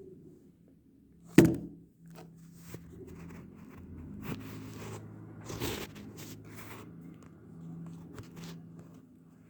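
JCB tractor's diesel engine running at a steady pitch, overlaid with close scraping and crunching noises and a loud knock about a second and a half in.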